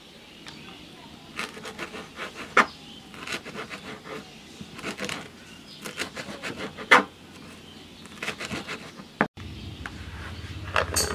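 Kitchen knife chopping fresh coriander leaves on a cutting board: quick, irregular taps of the blade against the board, several a second, in short runs with brief pauses.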